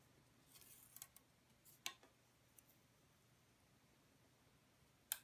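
Handling of a thin laser-cut Baltic birch plywood living hinge as it is bent into a curve. A soft rustle is followed by a few sharp clicks, the loudest just under two seconds in and another near the end.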